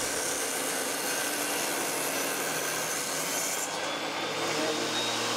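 Table saw running and cutting a wooden panel as it is pushed along the fence, a steady sawing noise; its high hiss thins out a little over halfway through.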